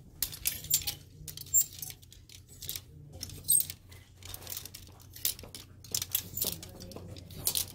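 Clear plastic clothes hangers clicking and clacking against one another and sliding along a metal clothing rack as they are pushed aside one by one. The clicks come irregularly, in small clusters.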